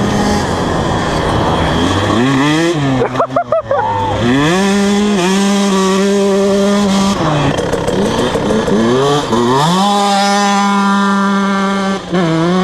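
KTM 150 SX two-stroke dirt bike engine accelerating hard: the revs climb steeply and shift up in the first few seconds, hold steady at high revs, ease off about seven seconds in, then climb again about nine seconds in and hold.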